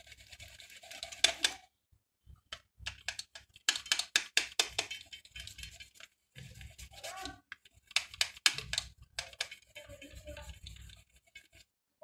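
Cotton rubbing and scrubbing over a remote control's printed circuit board, wiping carbon off the button contacts with sanitizer. The sound is irregular scratchy strokes with small sharp clicks, in short runs with pauses between.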